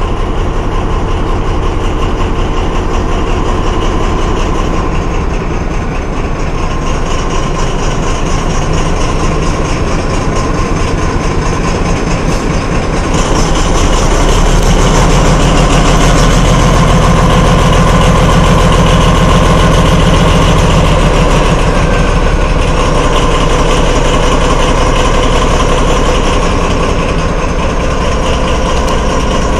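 MÁV class M41 'Csörgő' diesel-hydraulic locomotive's V12 diesel engine running steadily at low revs, heard close up. It gets louder about 13 seconds in.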